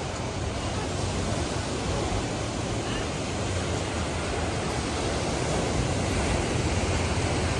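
Ocean surf breaking and washing in, a steady rush of water, with wind rumbling on the microphone.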